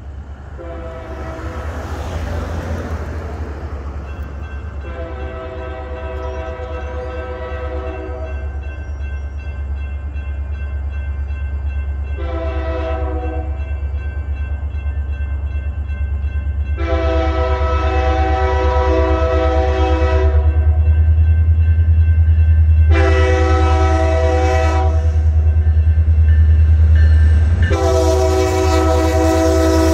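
Union Pacific diesel freight locomotive's air horn sounding the grade-crossing signal as the train approaches: two long blasts, a short one, then long blasts again, each a chord of several tones. Under it the locomotive's low engine rumble grows steadily louder as it nears.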